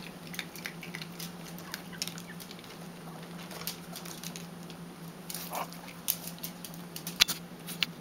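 Yorkshire terriers' claws clicking and tapping irregularly on a hard tile floor as the dogs shift about, with a few sharper clicks near the end, over a steady low hum.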